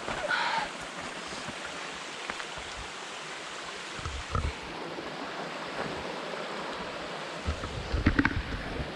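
Small mountain brook running over rocks, a steady rushing, with a few footstep thumps on the trail about four seconds in and a cluster of thumps and knocks near the end.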